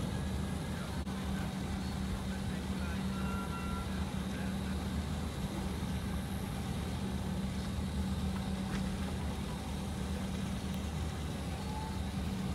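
Steady low hum of ferry diesel engines, with no change in pitch or level.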